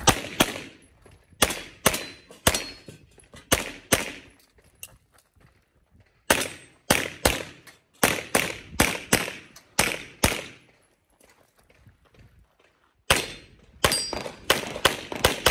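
Pistol shots fired in quick strings as a practical-shooting stage is run, each shot followed by a short echo. A first string of shots comes roughly half a second apart, then a faster run of about a dozen at about three a second from about six seconds in, and another fast string near the end, with brief pauses between as the shooter moves.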